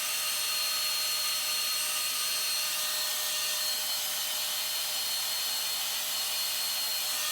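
Hand-held hair dryer running steadily, a constant rushing airflow with a faint steady whine, drying freshly sprayed wig glue.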